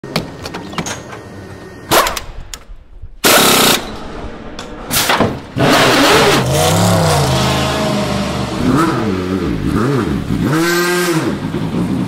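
Pit-lane sounds of endurance racing cars: sharp clicks and a few short, loud bursts of noise, then from about halfway a race car engine revving, its pitch rising and falling several times.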